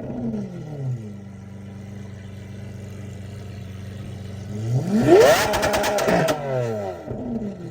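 Lamborghini Aventador SV's naturally aspirated V12 through a Ryft aftermarket exhaust, free-revving while stationary: it settles from a rev to a steady idle, then is blipped sharply up about halfway through, held briefly with crackles, and drops back toward idle.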